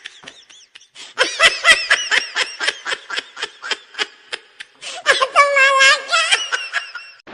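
Meme laughter sound effect: a fast run of high-pitched 'ha-ha' cackles, about four or five a second, then a drawn-out squealing laugh that fades near the end.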